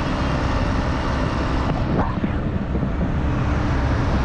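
Wind rushing over the microphone of a motorcycle moving at about 40 km/h, with the bike's engine running beneath it, and a short rising tone about two seconds in.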